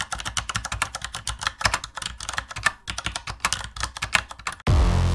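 Rapid, irregular keyboard typing clicks. Near the end, loud electronic music with heavy bass cuts in.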